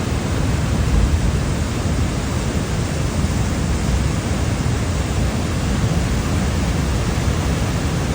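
Steady rushing of floodwater pouring across a road, a dense roar heaviest in the low end, with no breaks or separate sounds.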